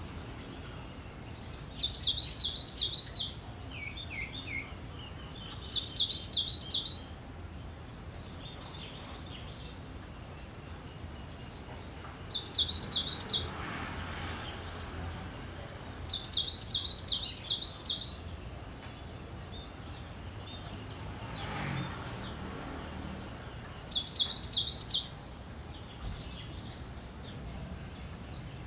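Cinereous tit (gelatik batu) singing in five phrases, each about one to two seconds long, of quickly repeated high notes at about three to four notes a second. Faint, softer calls come between the phrases.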